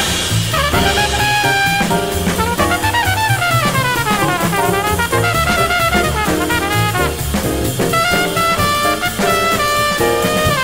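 Jazz sextet recording with trumpet, trombone, alto saxophone, piano, bass and drums: a horn plays a solo of fast runs rising and falling in pitch over the drum kit and bass.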